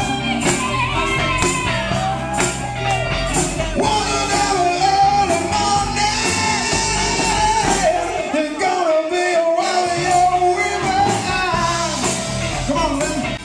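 Live rock band playing through a PA: drums, electric bass and guitar under women's voices singing the melody into a microphone, with steady drum hits. The bass and kick drum drop out briefly about two-thirds of the way through, then come back.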